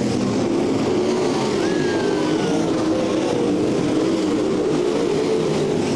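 A field of winged sprint cars racing on a dirt oval, several engines running at once, their pitch rising and falling as the cars work around the track.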